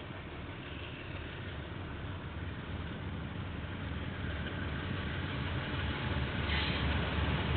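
A diesel train locomotive approaching: its engine runs with a low, pulsing drone that grows steadily louder.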